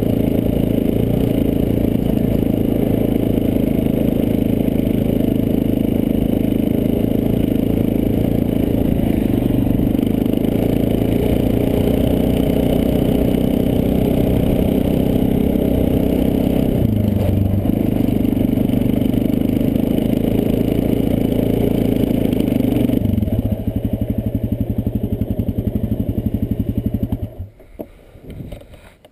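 ATV engine running steadily as the quad rides over snow, easing briefly about two-thirds of the way through, settling to a lower, quieter running near the end, then cutting off suddenly.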